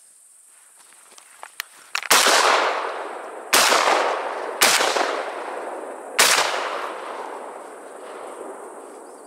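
Shotgun fired four times in quick succession, a little over a second apart, each shot followed by a long echo fading off the surrounding forest. A couple of faint clicks come just before the first shot.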